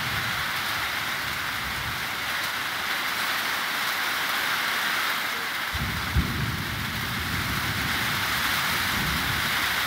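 Steady heavy rain falling, with a low rumble starting about six seconds in.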